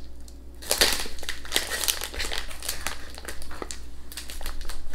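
Plastic sweets bag of Fruit Pastilles crinkling as it is handled and torn open, a dense run of crackles starting about a second in.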